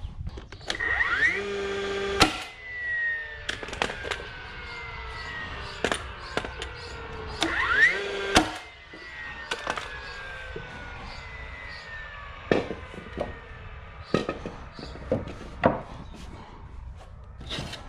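DeWalt framing nailer driving nails into pressure-treated lumber: twice its motor whirs up in a rising whine and fires with a sharp crack, then winds down in a long falling whine. Several more sharp knocks follow later.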